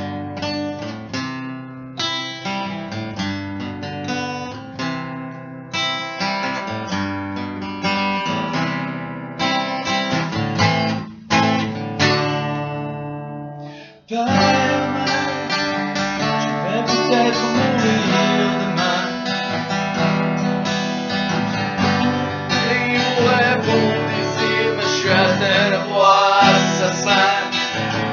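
Acoustic guitar playing a song, with the guitar alone for about the first half. After a short break about halfway, the playing gets fuller and two men sing along.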